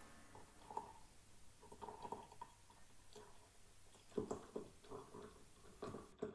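Coffee being poured from a glass French press into a mug: faint, uneven splashes and glugs coming in short spurts.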